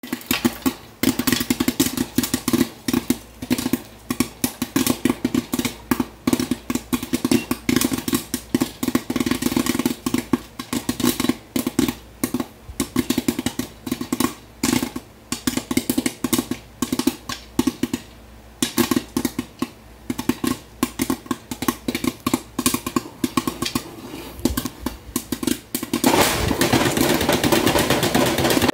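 Popcorn kernels popping in hot lard under the glass lid of a square pan, a dense, irregular run of sharp pops, many a second. About two seconds before the end, a continuous rattle of popped corn and metal takes over as the pan is moved on the stove grate.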